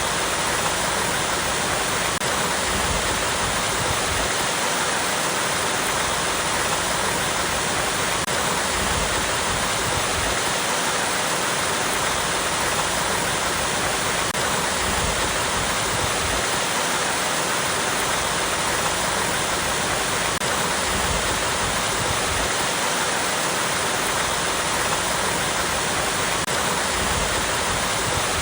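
Small waterfall cascading over rocks: a steady, even rush of water, with a low rumble underneath that swells and fades every few seconds.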